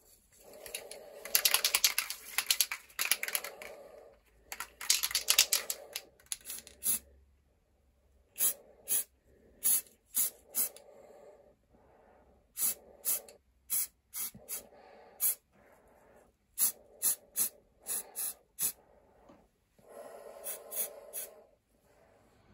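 Hammerite metal paint aerosol can being shaken, its mixing ball rattling rapidly, in two runs of a few seconds each. This is followed by a string of short spray bursts hissing from the nozzle, with brief shakes between them.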